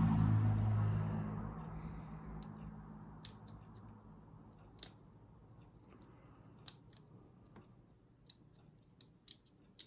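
Small sharp clicks and taps of tools and fingers on a phone's internals as its ribbon cable connectors are unclipped, scattered every second or so. A low hum fades out in the first second and a half.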